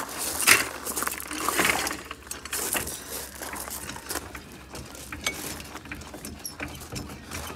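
Steel hydraulic floor jack scraped and shoved across gravel into place under the car, with crunching and clanking in the first two seconds. Then come scattered light metal clicks and clinks as the jack handle is worked.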